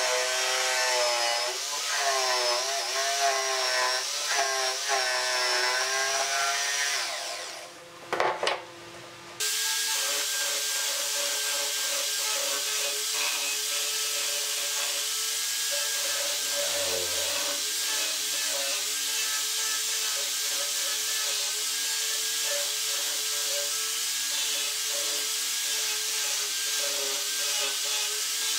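Electric jigsaw cutting curves in thick pine board, its motor pitch wavering under load and winding down about seven seconds in. After a short lull, an angle grinder fitted with a sanding drum runs steadily, sanding the pine edges.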